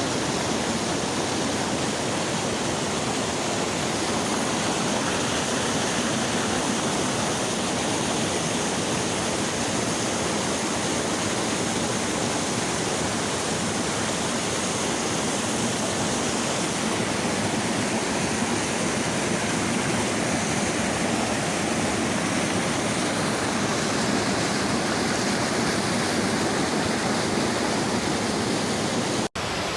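Waterfall: a steady, even rush of falling water, with a momentary dropout near the end.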